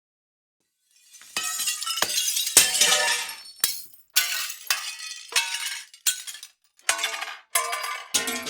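Plate glass crashing and shattering, a long crash with shards raining down for about three seconds, followed by a run of separate glass breaks: six short smashes, each a sharp impact with tinkling debris trailing off.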